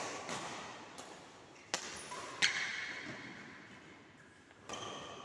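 Badminton rackets striking a shuttlecock during a rally, several sharp hits a second or so apart that echo in a large hall.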